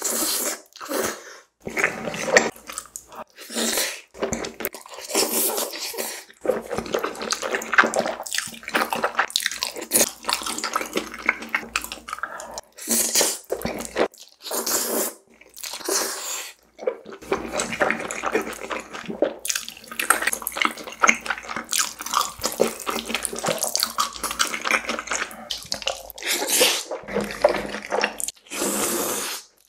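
Close-miked slurping of noodles in thick black bean sauce, with wet chewing, in repeated bursts broken by short pauses.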